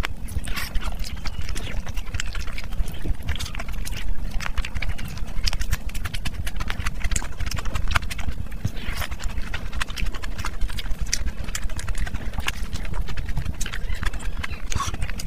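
Close-miked eating: wet chewing and lip smacking, a dense run of sharp clicks. Fingers squish curry-soaked rice and pull at chicken, over a steady low hum.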